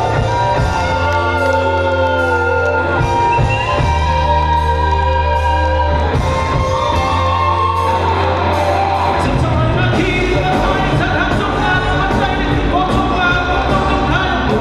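Pop music with singing over a band accompaniment and a steady bass line.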